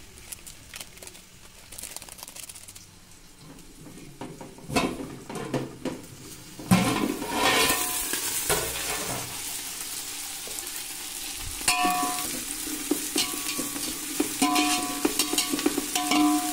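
Sliced onions frying in mustard oil in a metal pot, sizzling, loudly from about seven seconds in. From about twelve seconds a metal spatula stirs them, scraping and clinking with a ringing note against the pot. The onions are being fried to a light golden brown.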